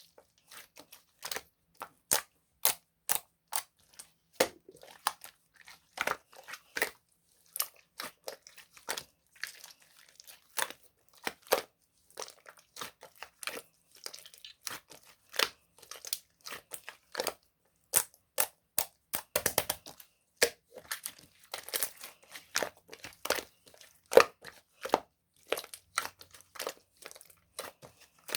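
Clear slime being squeezed, pressed and poked by hand, making crisp, irregular clicks and pops, a few each second.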